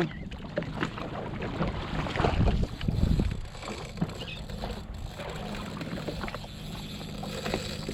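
Sea-Doo Fish Pro personal watercraft idling, a steady low hum under the splash and rush of water, which grows louder about two to three seconds in.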